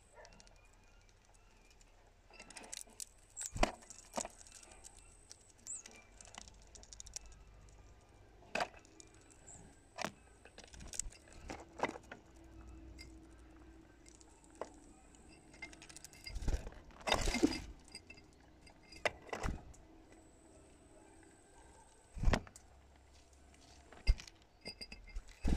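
Irregular sharp clicks and clinks, a dozen or so, from a bird pecking at and gripping the rim of a clear cup at a feeder, with a short cluster of knocks a little past the middle.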